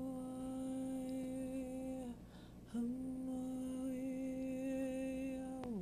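A person humming two long held notes on the same pitch, with a short breath between them. The second note slides down to a lower note near the end.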